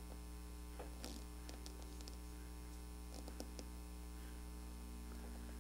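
Steady low electrical mains hum from the recording's sound system, with a few faint, soft clicks.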